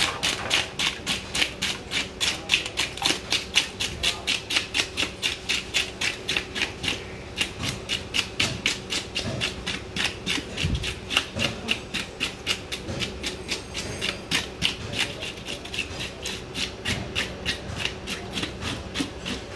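A fishmonger scaling a large whole fish by hand: rapid, even scraping strokes of the blade against the scales, about four or five a second.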